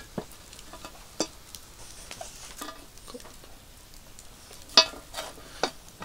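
Campfire and glowing charcoal crackling, with scattered sharp pops and snaps; the loudest snap comes near the end.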